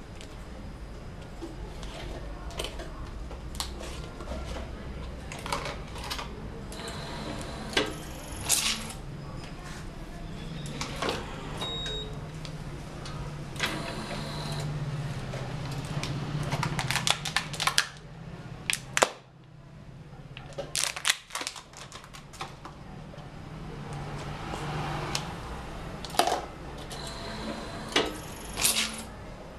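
Automatic cup sealing machine for bubble-tea cups running its sealing cycle: an electric motor hum that comes and goes as the tray and heat-sealing press move, with scattered clicks and knocks from the mechanism.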